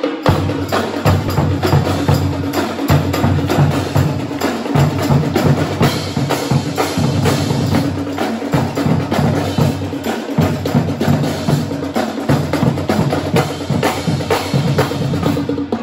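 Marching drumline playing: snare drums, tenor drums and bass drums in a fast, dense rhythm, with the bass drums dropping out briefly every couple of seconds.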